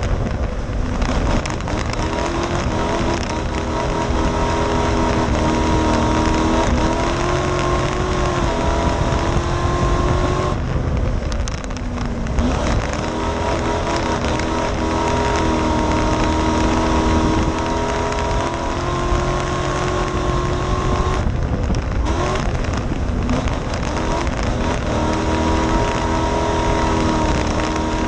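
Streetstock race car's engine heard from inside the cockpit, running hard with its pitch climbing along each straight, then dropping briefly off the throttle three times, about every ten to eleven seconds, as the car takes the corners.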